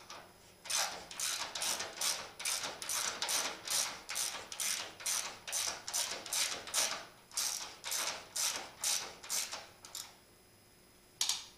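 Socket ratchet wrench clicking through repeated short back-strokes, about two a second, as a bolt is backed out of the bottom subframe mount. The strokes stop about ten seconds in, followed by one last click near the end.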